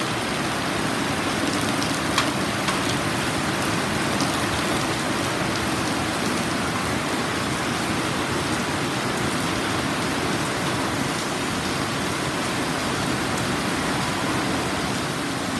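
Torrential cloudburst rain, a dense, steady hiss of heavy rain pouring onto roads, roofs and grass. A couple of sharp taps from drops striking something close by come about two seconds in.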